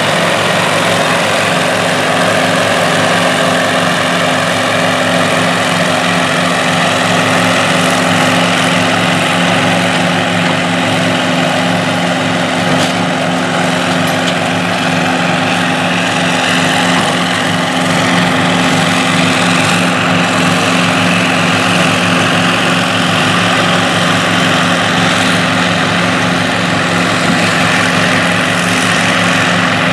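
Sperry-New Holland 1880 Crop Cruiser forage harvester chopping corn under load: its Caterpillar V8 diesel runs at a steady pitch under a dense whir from the cutterhead and blower. An International Harvester tractor pulling the silage trailer alongside runs with it.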